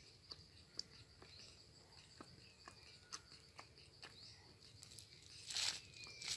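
Faint outdoor garden ambience: a steady high insect drone, a few short falling bird chirps and soft scattered clicks, with a brief rustle a little after five seconds in.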